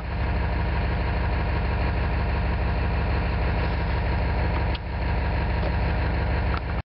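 Ford 7.3L IDI V8 diesel idling steadily after a cold start with several bad glow plugs, now running on all cylinders. The sound cuts off suddenly near the end.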